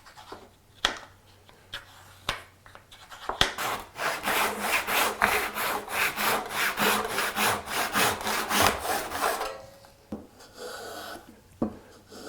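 Hand saw cutting wood in quick, even back-and-forth strokes, about four a second, starting about three seconds in and stopping near the end. It is preceded by a few light knocks of the workpiece being set.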